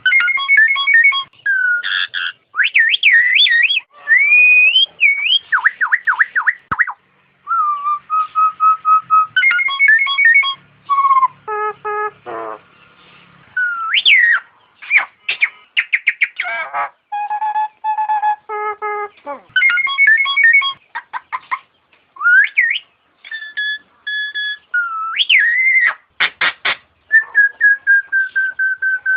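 Nias hill myna singing: a loud, varied run of clear whistled notes and up-and-down glides in short phrases, with fast clicking runs about twelve seconds in and again near the end.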